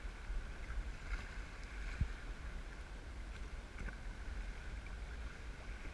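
Sea water splashing and hissing against a kayak's hull as it moves through light chop, over a low rumble of wind on the microphone. There is one short low knock about two seconds in.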